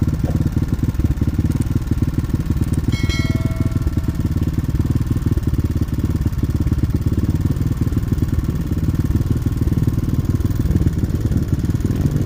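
Dirt bike engine running steadily at idle close to the microphone, an even low pulsing with no revving. About three seconds in, a brief high-pitched tone sounds over it.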